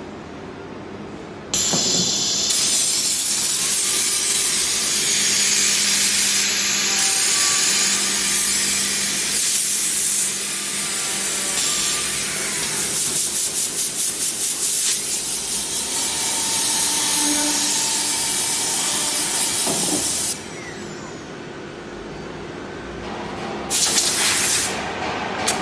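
Horizontal panel drilling machine running a drilling cycle on a cabinet board edge: a loud, steady hiss of drilling and air starts about a second and a half in and cuts off suddenly at about twenty seconds. For a couple of seconds midway it pulses about four times a second. A second short, loud burst of hiss comes near the end.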